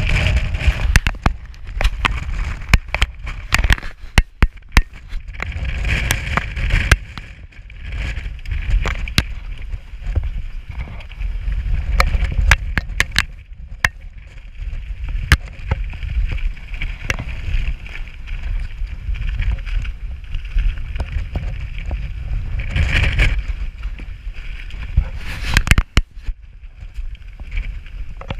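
Strong gusting wind buffeting the microphone: a heavy low rumble that surges and eases every few seconds, with many sharp clicks and knocks throughout.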